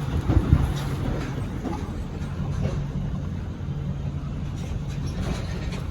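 Truck engine running with a steady low hum, with a few knocks and rattles in the first second from driving over rough ground.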